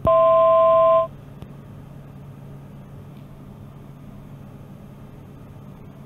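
A loud cockpit avionics alert tone, two notes sounding together for about a second, heard through the intercom audio. It stops, and the steady low drone of the Pilatus PC-12NG's single turboprop engine in the climb carries on.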